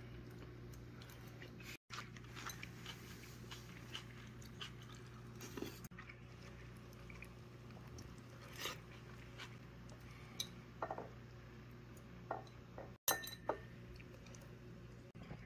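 Scattered light clinks and taps of a metal spoon and chopsticks against a bowl and a pot while lifting fishcake and rice cakes from broth and sauce, over a faint steady low hum.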